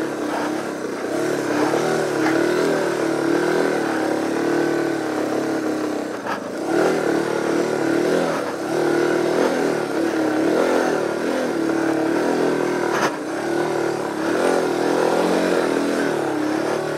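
Single-cylinder dual-sport motorcycle engine revving up and down again and again as it labours up a muddy climb, its rear wheel slipping in the mud. The revs dip briefly about six and thirteen seconds in.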